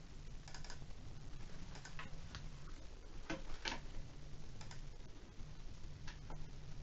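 Faint computer mouse clicks, a few scattered clicks, several in quick pairs, over a low steady background hum.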